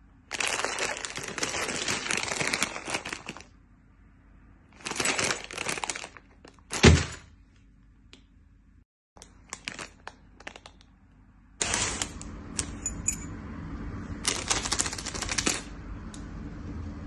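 Crinkly plastic food packaging handled in bursts: first an instant-ramen packet, with one sharp thump about seven seconds in, then a plastic bag of buns crinkling over a faint steady hum.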